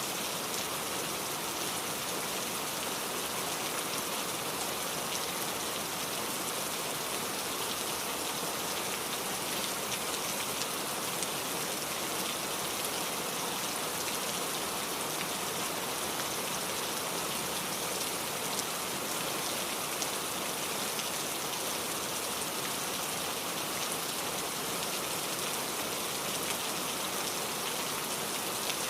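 Heavy rain falling steadily, a dense even hiss of drops on surfaces with scattered faint individual drop ticks.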